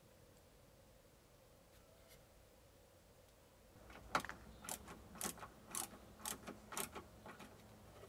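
Near silence, then from about four seconds in a hand screwdriver clicking in short, regular bursts about twice a second as it turns a screw into the wooden cabinet.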